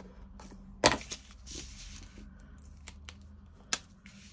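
Small craft items being handled on a desk: a sharp tap about a second in and another near the end, with light rustling between.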